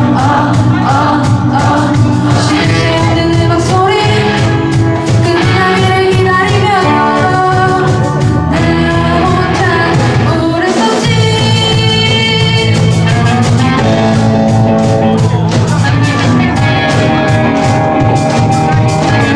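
Live rock band with a female lead vocal, electric guitars, bass, keyboard and drums playing a pop song. The bass and drums break off briefly about halfway through, then the full band comes back in.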